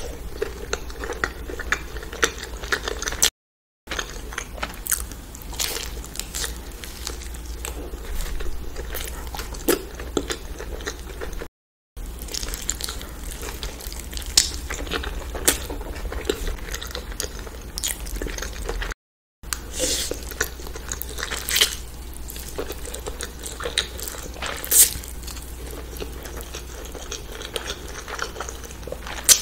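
Close-miked eating: a person biting and chewing pizza, later eating noodles, with sharp mouth clicks a few times a second. The sound cuts out briefly three times.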